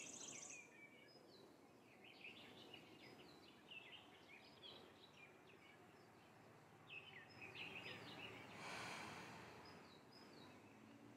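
Faint birdsong: several birds giving short, scattered high chirps over a quiet outdoor background, with a soft rushing noise lasting about a second near the end.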